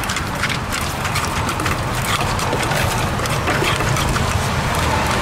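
Wooden pestle pounding and a spoon turning shredded green papaya salad in a clay mortar: irregular knocks and scrapes, over a steady low rumble.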